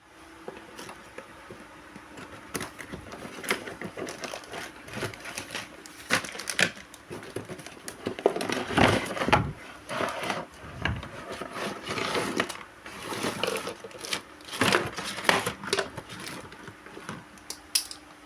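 Toy packaging being unboxed: irregular crinkling and rustling of plastic wrap and cardboard, with scattered clicks and crackles.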